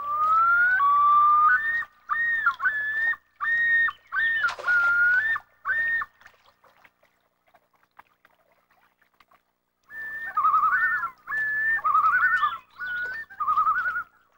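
Common loon calling: a rising wail that breaks into a yodel of repeated notes jumping between two pitches, then, after a few seconds' pause, a quavering tremolo.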